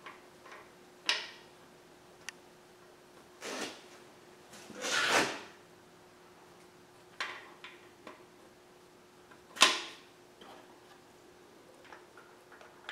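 New hydraulic lifters being dropped into the oiled lifter bores of a cast-iron small-block Chevy 350 block: scattered metal clicks and knocks a couple of seconds apart, with a longer scraping rattle about five seconds in. The loudest click comes about three quarters of the way through.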